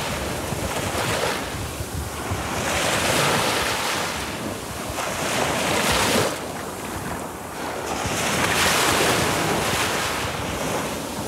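Small waves breaking and washing up a sandy beach in a rushing surge that swells and falls back about every three seconds. Wind rumbles on the microphone underneath.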